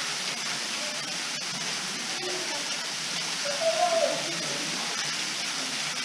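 Salmon Creek Falls, a tall, thin waterfall, pouring into its pool: a steady rushing, splashing hiss. A brief pitched sound rises over it a little past halfway.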